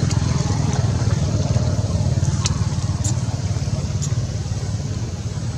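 Steady low engine rumble, like a motor vehicle running nearby, easing slightly near the end. A few faint, short high chirps or ticks come about two and a half, three and four seconds in.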